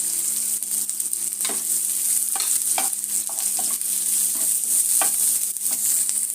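Chopped onion frying in hot oil in a pan with cumin, giving a steady sizzle. The onion is stirred, with about eight short knocks and scrapes of the utensil against the pan.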